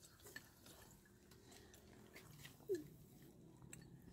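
Near silence of a meal in progress: faint scattered clicks of chopsticks against porcelain rice bowls, with one brief falling tone about two and a half seconds in.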